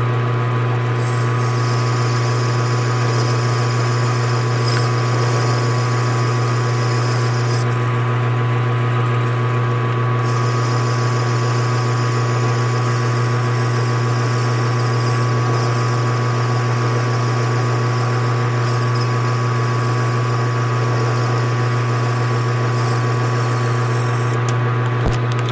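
Metal lathe running with a steady low hum while a parting tool cuts through the spinning round stock to part off a small bushing; a high hiss of the cut comes in two long stretches, stopping shortly before the end as the part is cut free.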